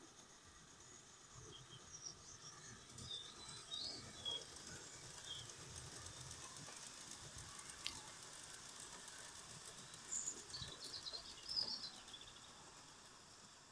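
Small birds chirping over the faint rumble and light ticking of a Gauge 1 live-steam B1 locomotive and its coaches running past on garden-railway track, swelling as the train passes and fading near the end.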